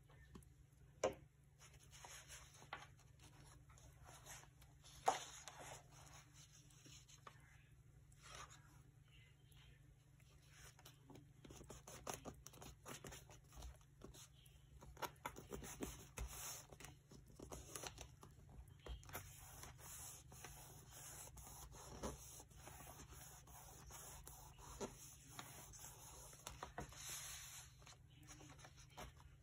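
Paper and craft materials being handled at a work table: rustling and scraping with scattered light taps, and two sharper taps about one second and five seconds in.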